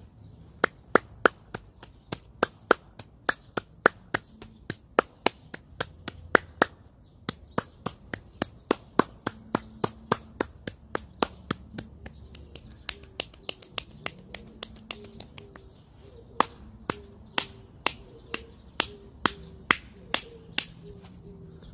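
A long series of sharp clicks or slaps, about two to three a second and somewhat uneven, with a short pause about two-thirds of the way through.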